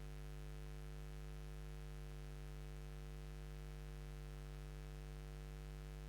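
Steady electrical mains hum with a faint hiss; no machine movement or other sound stands out.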